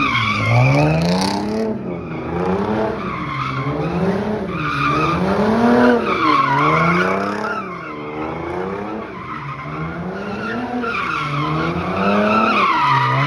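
A car spinning donuts: its engine revs climb and drop over and over, about every second and a half, while the tyres squeal.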